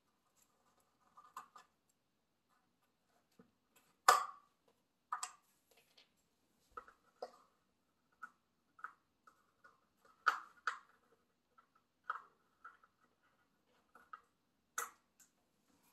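Scattered small plastic clicks and taps from a horizontal window blind's bottom rail, as its small plastic plugs are prised out with a hand tool. The loudest click comes about four seconds in.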